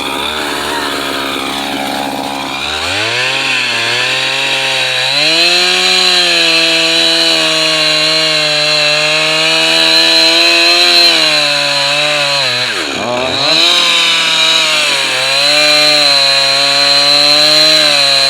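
A two-stroke chainsaw idles, then is throttled up about three seconds in and held at high revs, cutting through wood. About thirteen seconds in the revs drop sharply almost to idle, then climb back up and hold again.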